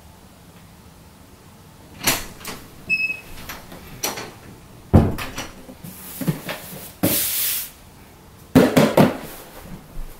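A door being opened and shut and someone walking in with a cardboard box: a series of knocks and thumps, with a short squeak about three seconds in and a brief scraping rustle around seven seconds in.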